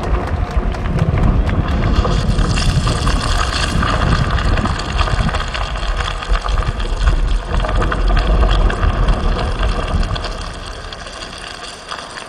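Loud, deep rumbling sound effect from a projection show's soundtrack, with a hiss and faint ringing tones over it. It dies away over the last couple of seconds.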